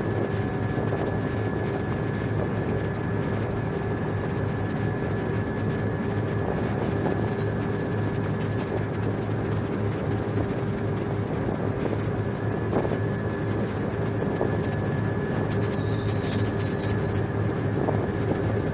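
A pilot boat's engines running steadily, heard on board: a constant low hum with a thin steady whine above it, over a hiss of wind and water.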